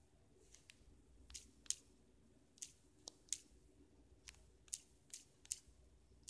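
Faint, sharp taps of typing digits on a smartphone's touchscreen number keyboard: about a dozen at an uneven pace, roughly two a second, over a faint steady hum.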